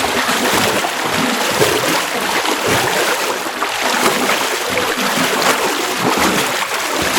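Continuous splashing and churning water, irregular and fairly loud.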